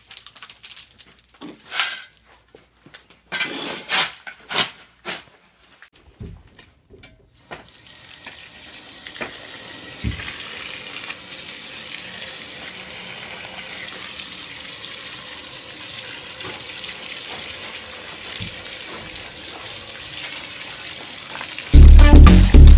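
A jet of water from a hose spraying onto loose dirt and gravel fill, a steady hiss, wetting the fill to compact it. Before it come scattered knocks and crunches of footsteps on rubble, and loud music starts near the end.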